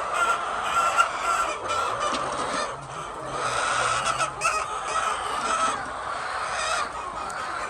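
A flock of domestic hens clucking and calling continuously, many birds overlapping.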